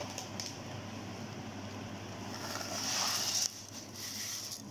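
Fried chana dal being tipped off a sheet of paper into a bowl: paper rustling and a rush of dry fried lentils sliding in, loudest for about a second past the middle and cutting off suddenly, over a steady low hum.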